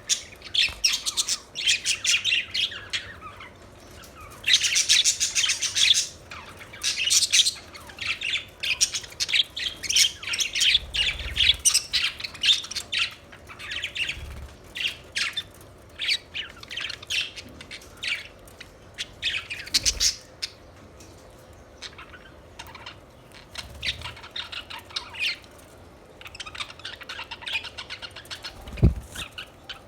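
Several budgerigars chirping and chattering in dense, overlapping bursts of short high calls, with one low thump near the end.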